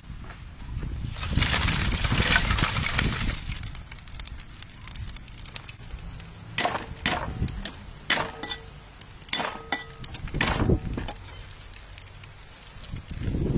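Fire crackling loudly for a couple of seconds, then about six sharp knocks of a cleaver striking a wooden chopping board, each with a short metallic ring, as garlic is smashed.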